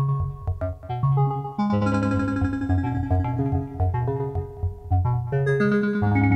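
Make Noise modular synthesizer playing an evolving pattern of fixed-pitch oscillator tones, opened and closed by QXG filter/VCA channels under PoliMATHS control. No pitch is sequenced; the changing notes come only from which channels open. Several tones sound together, starting and stopping in an uneven rhythm, and brighter high tones join about a second and a half in and again near the end.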